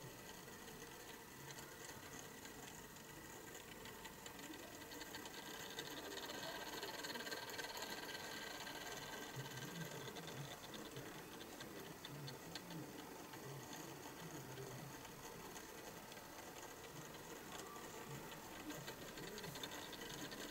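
Faint ticking and whirring of a small motorized display turntable turning slowly.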